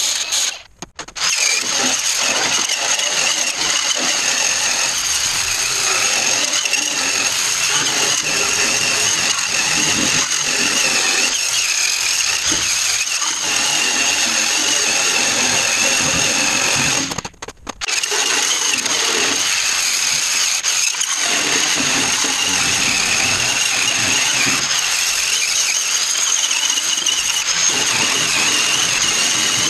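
Handheld power tool running almost without pause against a stainless steel sheet panel, with a steady high whine over rough metal noise. It stops briefly about a second in and again around seventeen seconds in.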